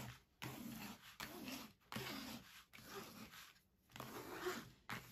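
A plastic scraper tool rubbed in about five strokes over the plastic protective film of a diamond-painting canvas, smoothing the canvas flat.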